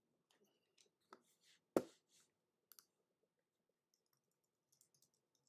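A few faint, scattered clicks and taps from handling small objects, the sharpest about two seconds in.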